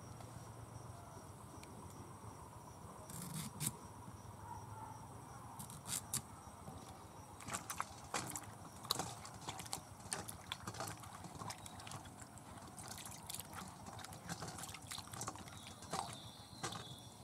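Hands washing cut vegetable pieces in a steel bowl of water: irregular small splashes and drips, with short knocks against the metal bowl.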